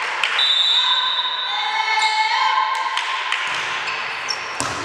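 Volleyball rally in a large sports hall: sharp hits of the ball during play, the loudest just before the end, over long steady high squeaks and voices in the hall.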